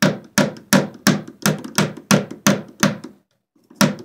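A hammer driving a wire staple to tack electrical cable in place, with rapid, evenly spaced blows about three a second, a brief pause about three seconds in, then more blows.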